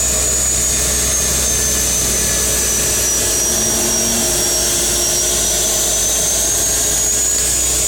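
Seaplane's turboprop engine running steadily as the aircraft moves on the water after touchdown, heard from inside the cabin, with a high whine that sags a little in pitch mid-way and comes back up.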